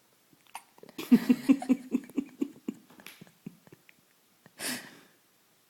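A five-day-old baby with the hiccups, breathing and grunting in a quick run of short pitched breaths for about two seconds, then one sharp breathy catch near the end.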